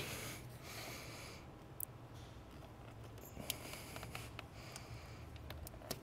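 Quiet handling noise and a few faint small clicks as the electrical connector is unplugged from the fuel rail pressure sensor, with a soft hiss in two stretches.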